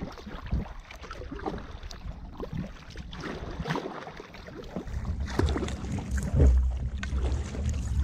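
Kayak paddle strokes splashing and dripping in choppy bay water. From about five seconds in, wind buffets the microphone as a louder low rumble.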